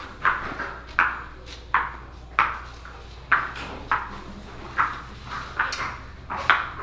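Footsteps on a wet epoxy floor: a series of sharp, irregularly spaced steps, roughly one every three-quarters of a second, each ringing briefly, over a low steady hum.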